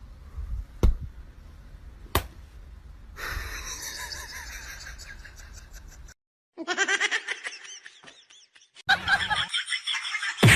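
A few sharp knocks, then human voices laughing in several short stretches, broken by abrupt cuts.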